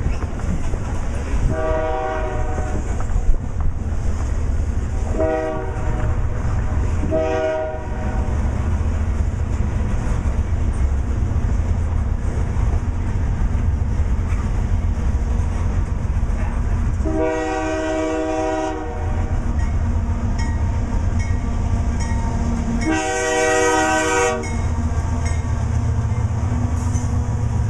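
Diesel freight locomotive's air horn sounding five blasts over the low rumble of the approaching train. The blasts come about 1.5 s in (long), twice briefly around 5 and 7 s, again long about 17 s in, and once more near 23 s. The engine drone and wheel clatter grow louder as the Canadian National locomotive passes near the end.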